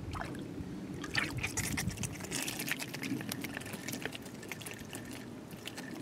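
Small brook trout hooked on a line, splashing and thrashing at the water's surface in irregular bursts.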